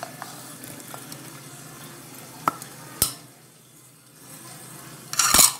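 Steady sizzle of potatoes frying in oil in a covered pan. Over it come a click, a sharp knock about three seconds in, and a short, loud clatter near the end as cut onion and ginger go into a stainless steel mixer-grinder jar.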